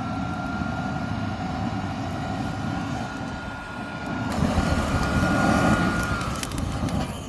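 A small electric blower fans air onto a wood fire: a steady rush of air with a thin motor whine. About four seconds in the rush grows louder and hissier, and the whine stops shortly after. A few sharp crackles from the burning wood come near the end.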